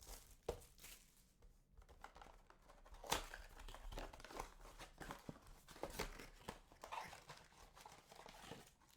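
Wrapping of a trading-card blaster box and its packs being torn open and crinkled by hand: scattered rustles and tears, with a sharper snap a little after three seconds in.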